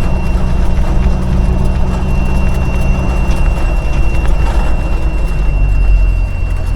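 A 5-ton military truck's engine running under way, heard from the cab as a loud, steady low drone with a faint high whine over it. About five and a half seconds in, the engine note drops lower.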